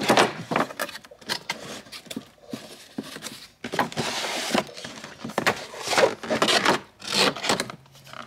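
Cardboard packaging handled: a box slid out of its sleeve and opened, with irregular rubbing, scraping and rustling and a few short knocks, including a longer sliding scrape about four seconds in.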